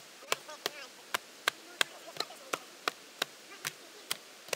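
A knife being batoned down through a standing log to split it: a wooden baton striking the back of the blade in sharp, steady knocks, about three a second.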